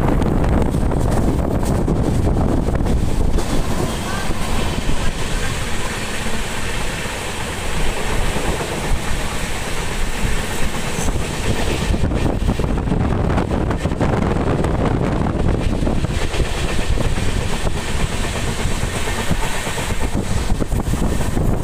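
Passenger train running along the track: a steady, loud rumble of the coach's wheels on the rails.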